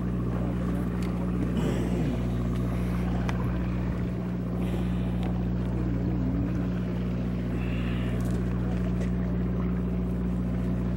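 Sport fishing boat's engine running with a steady low hum.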